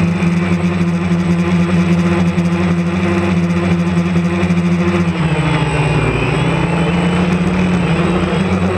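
DJI Phantom quadcopter's electric motors and propellers droning steadily, heard from the camera mounted on the drone. About five seconds in, the pitch drops as the motors throttle back, then rises again near the end.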